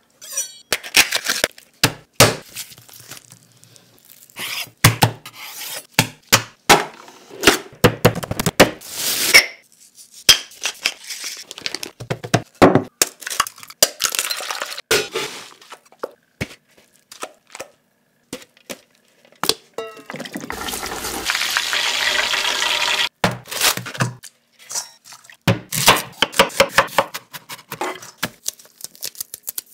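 Close-miked kitchen prep sounds in quick succession: sharp clicks, knocks and clinks of bowls and utensils handled over a wooden cutting board, with a steady rushing noise for about three seconds past the middle and quick knife taps on the board near the end.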